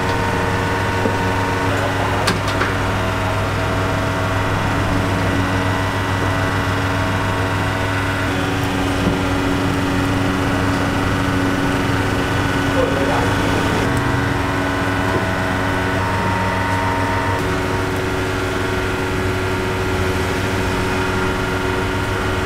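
Steady mechanical hum of commercial kitchen equipment such as a ventilation fan, with a few light metal clicks as wire grill racks are handled.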